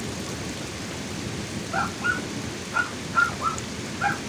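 Heavy rain pouring steadily over a continuous low rumble of thunder that sounds like a low-flying plane. From about two seconds in, an animal gives a string of short, high calls through the rain.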